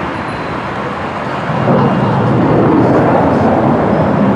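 Jet engine noise of an F-35 fighter's single afterburning turbofan passing over, a steady rushing noise that swells suddenly about a second and a half in and stays loud.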